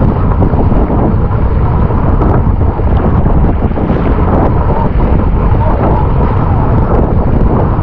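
Loud, steady wind noise buffeting the microphone, a heavy low rumble with no break.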